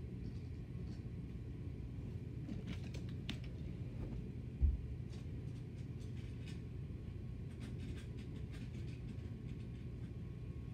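Steady low rumble with a hum, scattered faint clicks, and one dull thump about four and a half seconds in.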